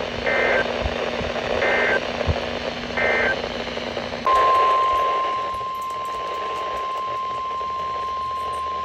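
NOAA Weather Radio over a receiver with static: three short bursts of the EAS digital header's warbling data tones, then about four seconds in the steady 1050 Hz warning alarm tone starts and holds. The alarm tone signals that a warning message is about to be read.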